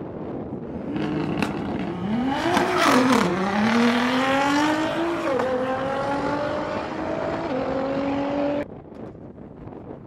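A car accelerating hard down a drag strip: the engine revs climb, drop at each of three quick upshifts and climb again. The sound cuts off suddenly near the end, leaving wind noise on the microphone.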